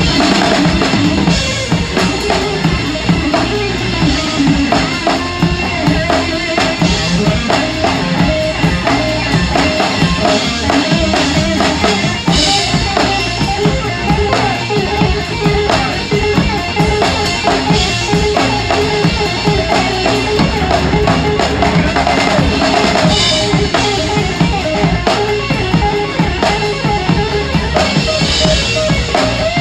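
Rock drum kit played hard and continuously, heard close to the kit: big bass drum, snare and cymbals, with cymbal crashes standing out every few seconds. The rest of the rock trio plays along underneath.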